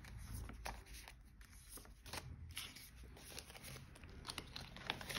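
Faint rustling and light clicks of paper banknotes and a cash envelope being handled as money is tucked into a savings envelope.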